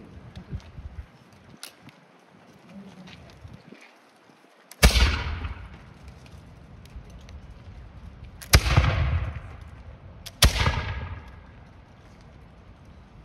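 Three musket shots, about four and then two seconds apart. Each is a sharp crack with a rumbling tail that dies away over about a second.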